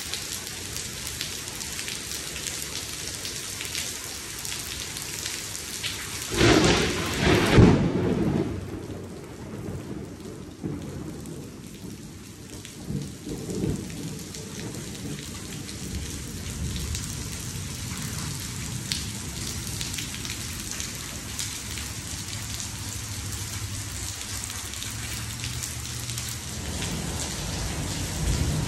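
Heavy rain falling steadily on a pool and its concrete deck. A loud clap of thunder comes about six seconds in and rumbles for about two seconds, with a smaller rumble around thirteen seconds.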